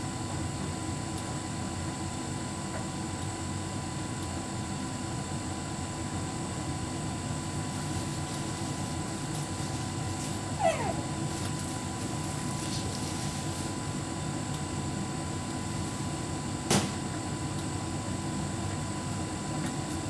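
Hotpoint heat pump tumble dryer running steadily with a continuous low hum. A short squeak falls in pitch about ten seconds in, and a single sharp knock comes near the end.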